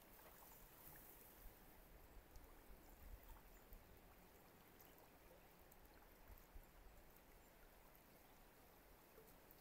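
Faint, steady rush of a high, rain-swollen creek flowing, with a few light ticks scattered through it.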